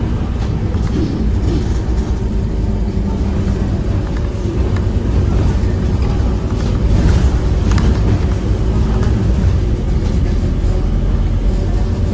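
Scania K230UB bus's five-cylinder diesel engine and road noise heard from inside the passenger cabin as the bus drives along, a steady low running sound that grows slightly louder about halfway through, with a few short clicks and rattles.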